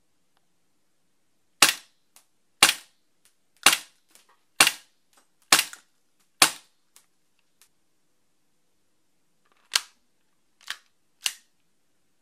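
Cybergun/VFC FNX-45 Tactical gas blowback airsoft pistol firing: six sharp shots about a second apart, each followed by a faint click. After a pause of about three seconds come three more shots, the middle one quieter.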